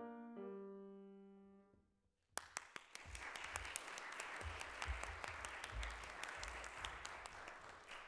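The final chord of a piece on an August Förster grand piano rings and fades away. About two seconds in, an audience starts applauding.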